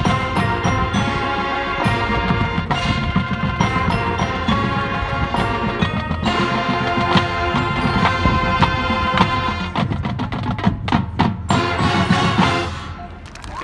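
Marching band playing, winds over full percussion. A run of sharp drum hits comes about ten to twelve seconds in, and the music dies away near the end.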